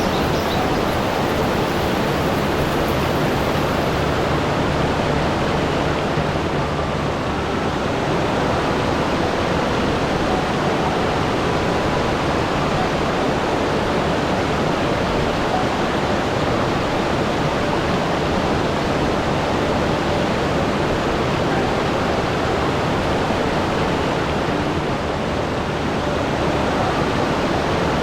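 Steady rushing water with an even, unbroken hiss.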